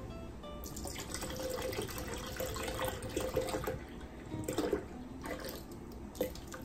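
Evaporated milk poured from a can into a plastic blender jar: a steady stream of liquid filling the jar, starting about a second in.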